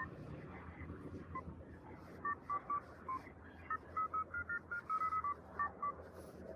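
Keypad touch tones from a phone being dialled: a string of short two-tone beeps, a few spaced out at first, then a quick run of keypresses.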